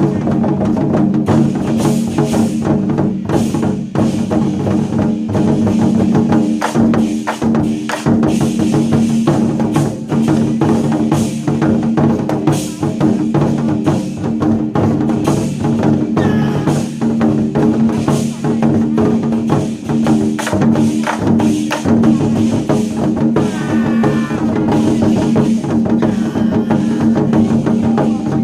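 Chinese war drums beaten in rhythm by a drum troupe, big drum strokes over a steady backing music track.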